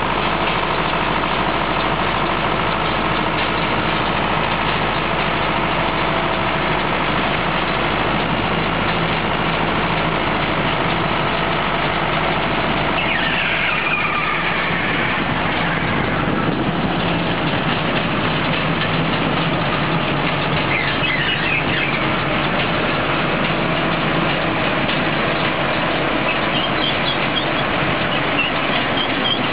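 Ursus 914 tractor's four-cylinder diesel engine running steadily, driving a John Deere 590 round baler whose mechanism works along with it.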